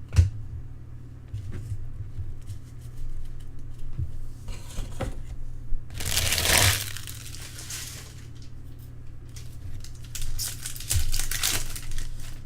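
Trading cards and their packaging being handled: crinkling and rustling in two longer bursts, with a few light clicks or taps, over a steady low hum.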